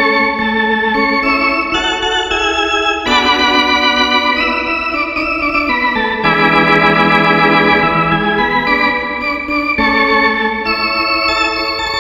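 Sampled Yamaha YC-45D combo organ played on a Korg Kronos keyboard: a run of held chords with vibrato, changing every second or two.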